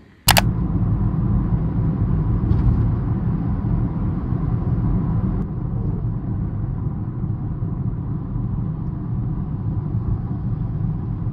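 Steady low rumble of road noise inside a moving car's cabin on a wet road. It starts abruptly with a short click just after the start.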